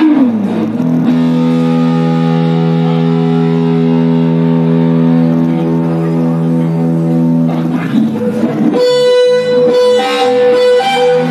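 Electric guitar played through the stage sound system. A note bends downward, then one note is held for about seven seconds, and near the end it breaks into a repeated higher note mixed with short picked notes.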